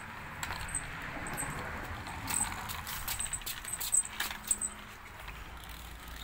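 Scattered light clicks and taps of a plastic toy car being handled and rolled along a ledge, with more of them in the middle.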